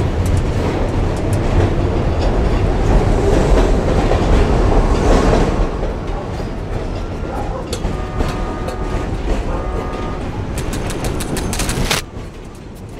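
Loud low rumble with a rattling clatter, easing after about six seconds; a quick run of sharp clicks near the end, then it cuts off suddenly.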